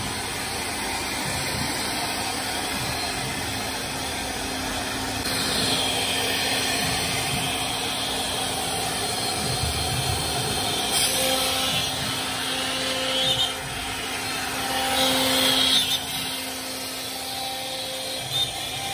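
Ncan CNC router spindle running steadily while its bit cuts grooves into a wood board, with louder stretches of hissing cutting noise around six, eleven to thirteen and fifteen seconds in.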